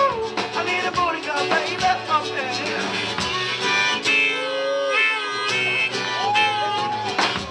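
Live band music from a strummed acoustic guitar and a drum kit. Midway the drums drop out for about a second under long held notes, then come back in.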